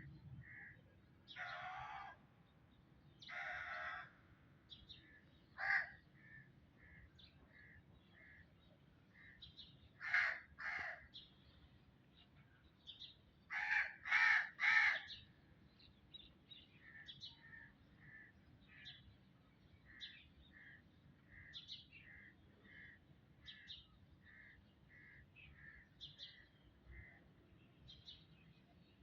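Birds calling: one bird gives loud, harsh calls, singly or in pairs, with a run of three in quick succession about halfway through. Behind it another bird repeats a short clear note about every second, along with faint high chirps.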